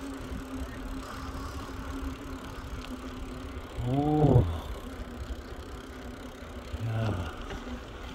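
Rumble of moving over paving stones with a steady low hum underneath. A man's wordless drawn-out exclamation rises and falls about four seconds in, and a shorter one comes near the end.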